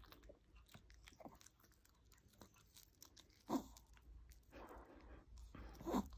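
Chihuahua chewing and licking a large marshmallow, a run of small wet smacks and clicks close up, with two louder smacks about three and a half seconds in and near the end.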